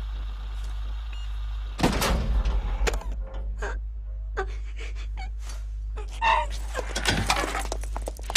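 Film sound effects: a series of sharp bangs, knocks and crashes over a steady low hum. There is a loud bang about two seconds in, a quick run of clicks and knocks in the middle, and more bangs near the end.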